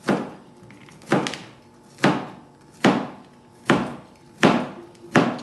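Knife chopping bitter gourd (karela) on a cutting board: seven sharp knocks, about one a second.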